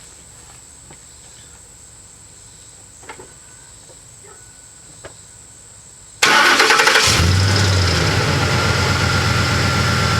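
Ford 5.4 L three-valve Triton V8 starting about six seconds in and settling into a steady idle, with a click-click-click timing chain rattle at startup: the hydraulic chain tensioners have leaked down their oil while the truck sat, so the chain is slack until oil pressure builds.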